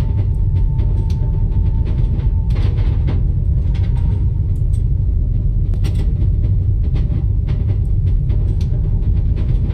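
Steady heavy rumble of a train carriage in motion, with faint scattered clicks and knocks over it. A faint held tone stops about two and a half seconds in.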